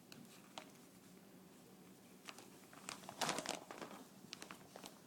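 Faint scattered clicks and crunches of a young child eating snow, with a louder cluster of them about three seconds in.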